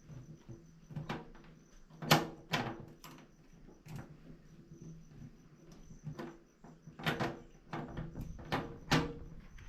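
Irregular sharp knocks and clicks of hardware and tools as solar panels are screwed onto their mounting, about a dozen strikes with the loudest about two seconds in and near the end.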